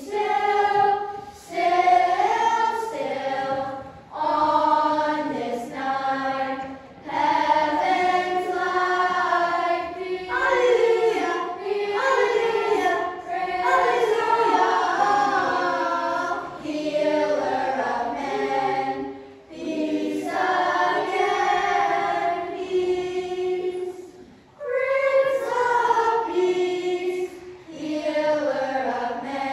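A choir of children and teenagers singing together, phrase by phrase, with short breaks between phrases.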